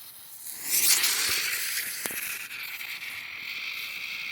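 A small spinner firework catching light about a second in with a sudden rush of hissing, then burning with a steady, high hiss.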